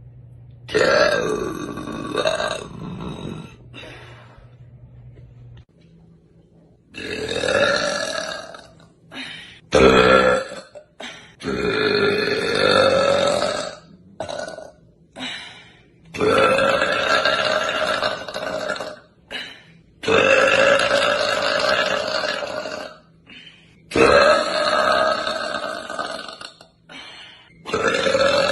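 A woman burping deliberately, about eight long drawn-out burps in a row, each lasting one to three seconds, with short breaths between them.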